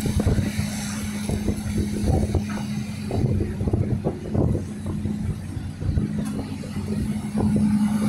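Diesel engine of a Hitachi Zaxis 200 crawler excavator running at a steady working speed with a constant hum, as it swings its boom and lowers its bucket to dig sand.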